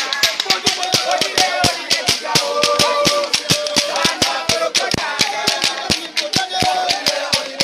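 A group of voices singing a chant together over a fast beat of sharp percussive strikes, several a second.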